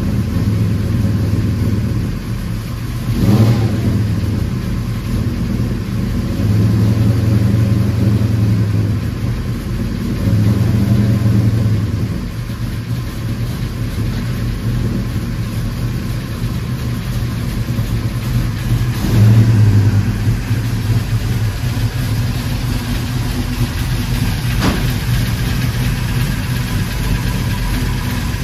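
Big-block Chevy 496 stroker V8 running at idle, swelling louder several times.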